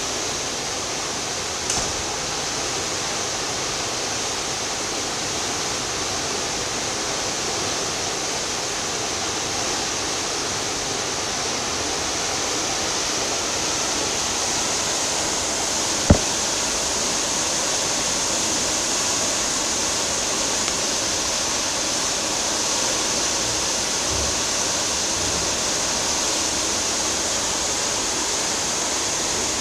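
Steady rushing of a cruise ship's churning wake far below, with one sharp click about sixteen seconds in.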